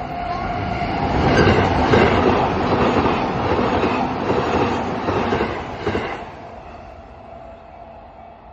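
A JR train passing over a level crossing, its wheels clattering over the rail joints, loudest for the first six seconds and then fading as it moves away. The crossing's warning bell keeps ringing with a steady tone underneath.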